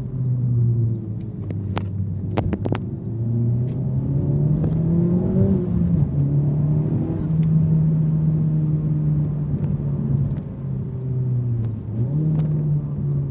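Honda Civic Type R FK8's turbocharged four-cylinder engine and exhaust running while driving. The engine note climbs briefly, drops at a gear change around the middle, holds steady, then dips and picks up again near the end, with a few sharp clicks about two seconds in.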